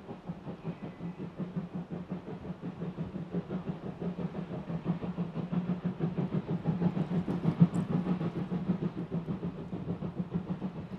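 Small tank steam locomotive working a train of coaches: rapid, even exhaust beats with a low rumble, growing louder as it approaches and loudest about three quarters of the way through.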